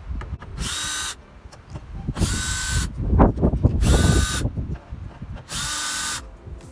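DeWalt 20V cordless drill with a 6 mm socket running in four short bursts of steady whine, each about half a second long, backing out the bolts that hold a car door speaker. Clunks from handling the loosened speaker and its bolts come in the middle.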